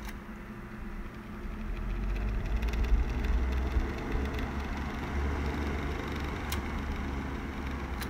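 Daracraft 10-inch box fan running, with a low rumble that grows louder about a second and a half in, and two brief sharp clicks, one at the start and one near the end.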